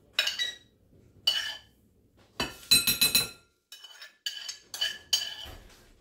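Metal utensil clinking and scraping against a frying pan and a metal bowl while browned ground turkey is scooped out of the pan, leaving its juice behind. A series of sharp clinks, bunched most closely around the middle.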